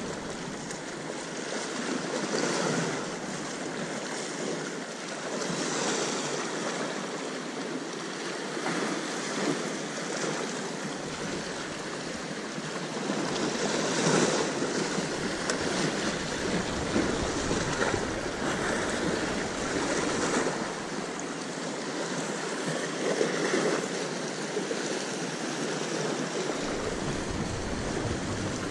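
Sea surf: waves breaking and washing in, swelling louder every few seconds.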